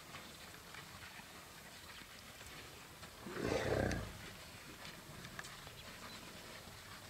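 An African elephant gives one short, rough, low roar lasting under a second, about three and a half seconds in, over a quiet outdoor background.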